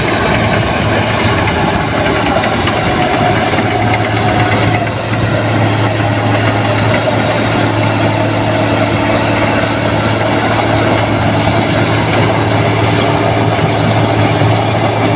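Rice combine harvester running steadily, its engine giving a constant low hum with the machinery's whine over it.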